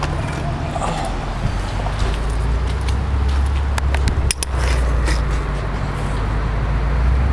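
A car engine idling with a steady low hum that grows louder about two seconds in, over a hiss of noise, with scattered crackles and a knock of the camera being handled about four seconds in.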